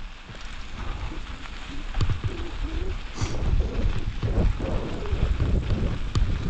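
Wind rumbling on the microphone of a camera on a moving mountain bike, with the tyres rolling over loose gravel and a few sharp knocks from the bike. The rumble grows louder about two seconds in.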